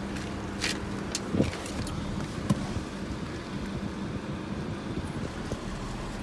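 Steady low hum inside a BMW 328i's cabin with the car switched on, with a few light clicks and knocks from handling inside the car in the first few seconds.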